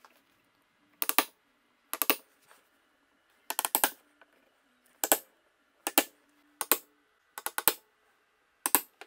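Claw hammer tapping an awl through a paper template into a dishwasher door panel to mark the screw positions: short groups of two or three light taps, about once a second.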